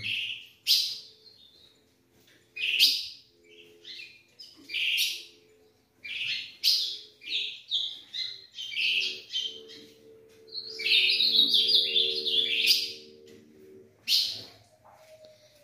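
Caged songbirds chirping and singing: short, separate high call notes, then a longer warbled phrase about ten seconds in, with a last chirp near the end.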